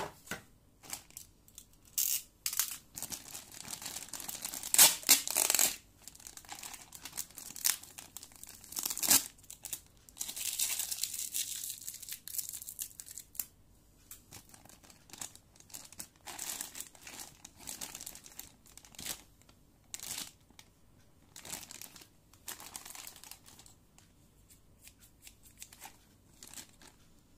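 Clear plastic packaging bags crinkling, rustling and tearing open as a toy's parts are unwrapped, in irregular bursts, busier and louder in the first half and sparser toward the end.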